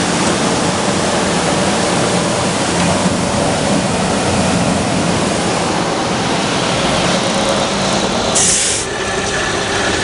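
Industrial woodworking sanding machine running, a loud, even machine noise with a steady low hum. About eight and a half seconds in comes a short, sharp hiss.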